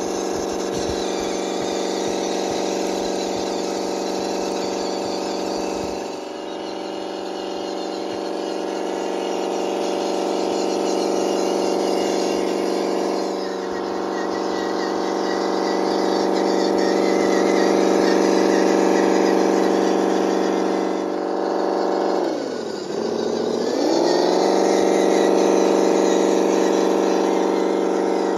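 Simulated engine sound from an ESP32-based RC sound controller, played through the speaker of an MN D90 Land Rover Defender RC crawler as it drives. A steady engine drone that swells and fades a little, and once, late on, drops sharply in pitch and climbs back.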